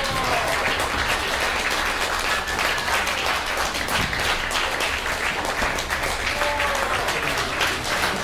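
Concert audience applauding steadily, with a few faint cheers.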